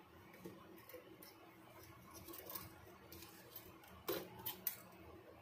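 Faint metal clicks and scrapes as a stuck heating element is worked loose from a hand sealing machine, with three sharper clicks about four seconds in.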